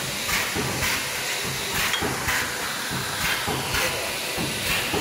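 CNC double-head wire mesh welding machine cycling its pneumatic welding heads, with a short air hiss about twice a second as the heads press and release at each weld.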